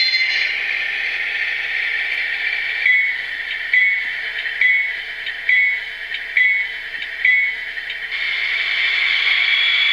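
Digitrax DCC sound decoder in an HO scale GE GEVO diesel model playing its locomotive sound through the model's small speaker: steady diesel engine running, with six bell strikes a little under a second apart in the middle.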